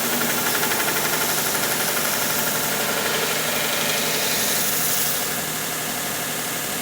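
Belt sander running with a steel screwdriver shaft held against the abrasive belt, giving a steady grinding hiss. The grinding eases slightly about five seconds in.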